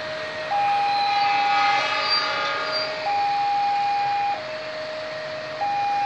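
Railway level-crossing warning alarm sounding: an electronic two-tone signal alternating between a higher and a lower note, each held about a second and a quarter.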